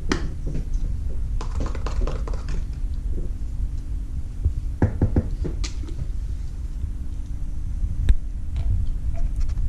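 Scattered light clicks and taps as a measuring spoon and contact-solution bottle are handled over a mixing bowl, over a steady low hum.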